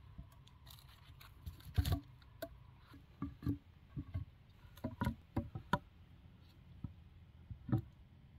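Wooden logs knocking against each other and against stakes as they are laid into a stacked log wall: a string of irregular knocks, the loudest about two seconds in and a quick cluster around five seconds.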